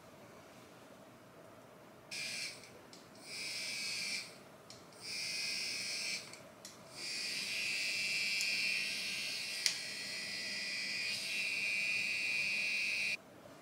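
Hair straightener gliding down strands of hair, making a high hiss with a faint whistle-like tone. It comes in four passes, short ones first and then one of about six seconds that stops abruptly near the end.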